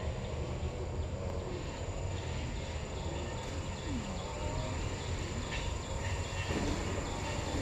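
Steady, high-pitched insect drone over a low rumble, in a plantation ambience.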